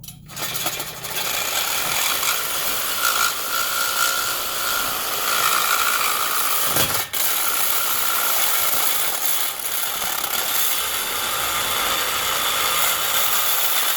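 Power saw cutting through the steel exhaust pipe of the resonator, running continuously with a brief stop about seven seconds in.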